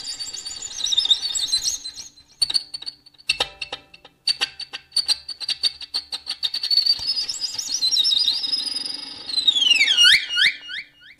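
Solo violin playing very high, squeaky, bird-like passages that imitate a skylark. It plays wavering trills and glides, stretches of rapid short bow strokes on one high note, and near the end a run of repeated falling swoops.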